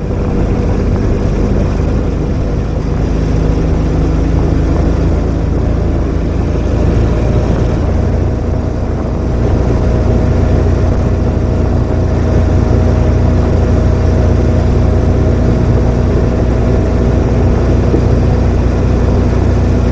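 Small utility vehicle's engine running steadily as it drives along a dirt trail, a continuous low drone whose pitch creeps slowly upward in the second half.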